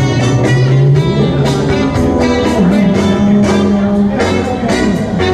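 Instrumental break in a Cantonese pop song: guitar melody over a steady beat, with no singing.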